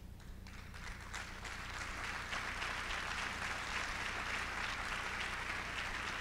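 Audience applause: many hands clapping, starting about half a second in, building over the next second or two and then holding steady.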